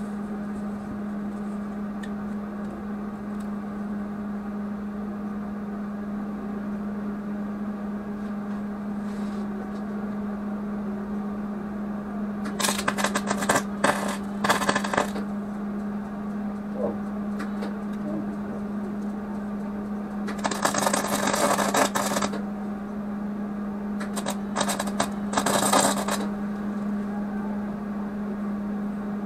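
Welding arc crackling in short bursts as tack welds are laid on the housing's thin sheet metal: three quick ones about halfway through, a longer one of nearly two seconds, then two more near the end, over a steady hum.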